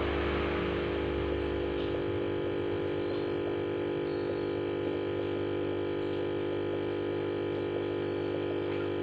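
Steady hum of a running aquarium pump, holding one even, unchanging tone.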